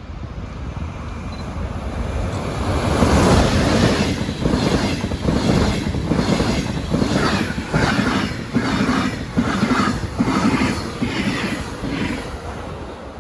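A train passing close by. The noise builds over the first three seconds, then the wheels clatter in a steady rhythm of about two strokes a second, easing off near the end.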